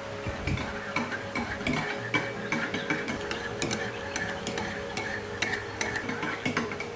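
A metal spoon stirring a drink in a ceramic mug, clinking irregularly against the mug's sides with short ringing taps.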